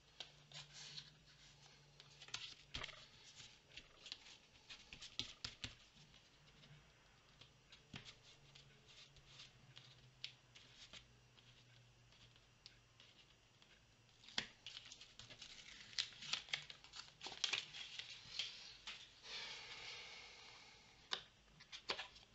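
Faint rustling and crinkling of paper being handled, with scattered light taps and clicks; the handling grows busier in the second half.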